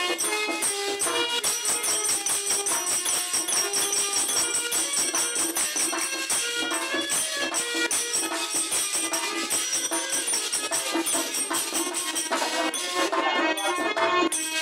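Devotional folk music: a dholak drum beaten in a fast, steady rhythm with jingling percussion and a melody over it.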